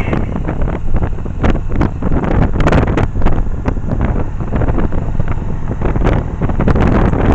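Heavy wind buffeting on the microphone of a Yamaha 1100 motorcycle under way, gusting unevenly over a low rumble from the bike.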